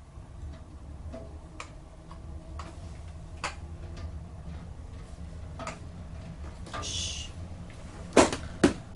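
Small metal clicks and ticks of a screwdriver working on a motorcycle carburetor's small parts, with a brief scrape just before 7 s. Near the end come two louder, sharp knocks as the carburetor body is handled over a stainless steel tray, over a steady low hum.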